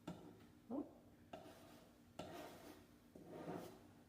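Spackle being spread onto a wooden door frame: faint scraping and rubbing in several short strokes, with a brief squeak about a second in.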